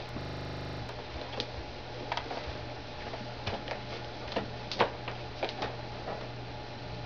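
Scattered light clicks and knocks of an English spring-tree saddle being handled, leather and tree shifting, the loudest a little before five seconds in, over a steady electrical hum. A short buzz sounds in the first second.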